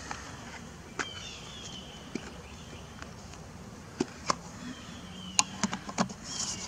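Sharp clicks and knocks of hands handling a screw-on lens filter at the camera, scattered through and bunching together near the end as the filter is fitted over the lens. Short high chirps falling in pitch repeat in the background.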